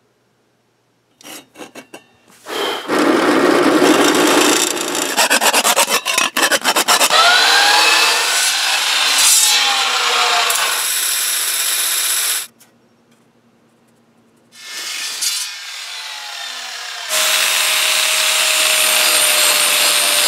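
Power tools cutting and grinding steel: an abrasive chop saw cuts through a steel cylinder, then after a short pause an angle grinder grinds a steel part with a steady, loud whine.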